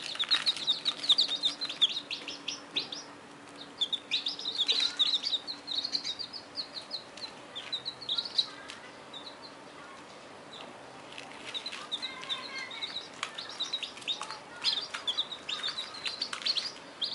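Chicken chicks peeping: many short, high chirps in flurries, with a lull of a couple of seconds just past the middle.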